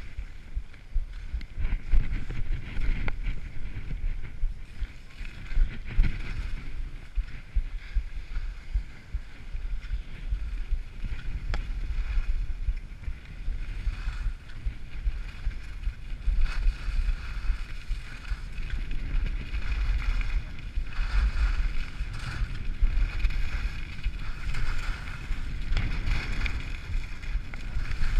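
Skis sliding and scraping over tracked snow during a downhill run, with wind buffeting the microphone as a low, uneven rumble.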